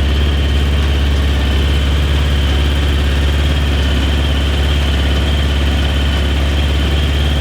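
1992 Honda CBR600F's inline-four engine idling steadily, with a steady high-pitched whine above the low even drone.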